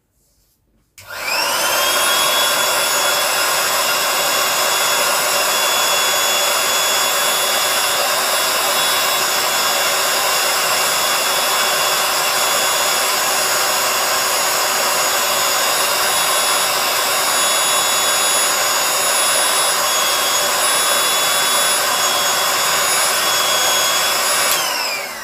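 Handheld electric air pump running steadily while inflating the base of an inflatable chair through its nozzle. The motor whine spins up about a second in, holds steady, and winds down with a falling pitch near the end as it is switched off.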